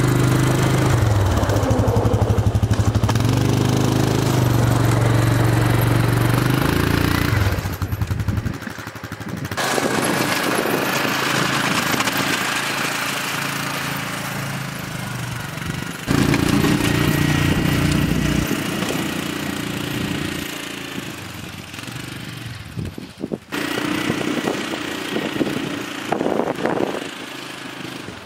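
A vehicle engine runs while snow is plowed. The sound changes abruptly several times, with the engine note dropping away or shifting.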